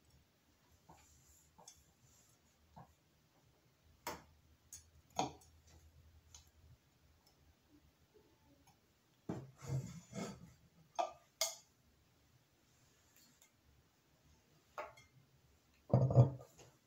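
Glass pieces of a homemade cake stand (a glass plate with a glass candle holder glued on) being handled on a stone countertop: scattered light clicks and knocks, a cluster of heavier knocks partway through, and the loudest thud near the end as the stand is turned over and set down.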